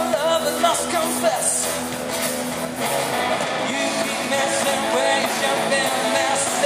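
Live rock band playing amplified electric and acoustic guitars over drums, with a lead voice singing in the first second or so.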